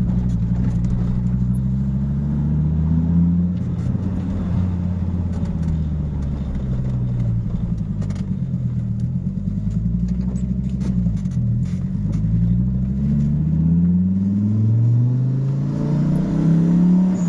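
Fiat Marea 2.0 20V turbocharged inline-five engine revving, its pitch climbing and dropping back several times, with the biggest climb near the end before it falls off sharply. A few sharp clicks are heard along the way.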